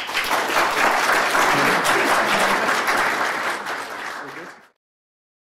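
Audience applauding after a talk. The clapping starts at once, holds steady, then cuts off abruptly about four and a half seconds in.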